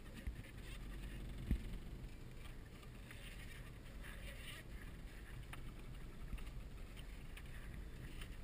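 Four-wheel-drive vehicle driving slowly along a rough dirt track, heard from inside the cab: a steady low engine and tyre rumble with scattered small knocks and clicks from the body over the bumps, and one sharp knock about a second and a half in.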